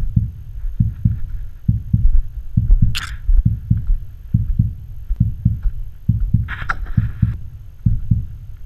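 Muffled footfalls of someone walking a rocky trail, carried through a body-mounted action camera: a steady rhythm of paired low thuds about once a second. A brief scrape or rustle comes about three seconds in and again near the end.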